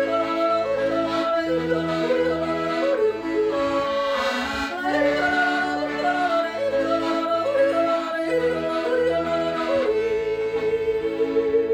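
Yodel song: a singer yodels over instrumental accompaniment with a steady bass line, closing on a long held note near the end.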